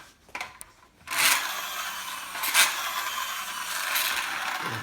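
Toy vehicle rolling and scraping across a hard floor for about four seconds, with a sharp knock a little past halfway.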